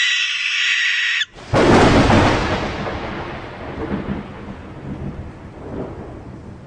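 A harsh, noisy screech cuts off just after a second in. Then a sudden loud thunderclap comes about a second and a half in, rumbling and slowly fading over the following seconds.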